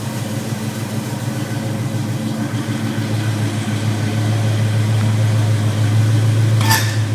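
Ford 289 V8 with headers and a Flowmaster exhaust idling steadily, growing somewhat louder about halfway through. A brief click near the end.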